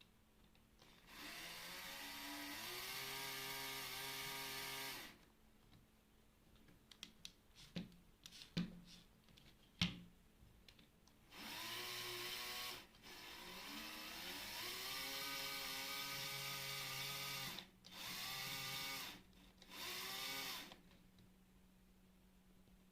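LEGO Spike Prime motor spinning a LEGO model drill: a faint electric whine that rises in pitch as it spins up, runs about four seconds, then starts and stops several more times in runs of one to four seconds. A few clicks and knocks fall in the pause about halfway through.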